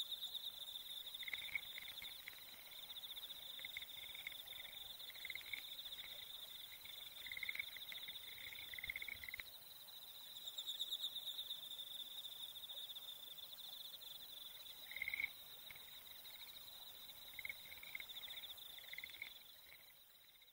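Insects trilling: a steady, high, rapidly pulsing trill, with groups of shorter, lower chirps every few seconds.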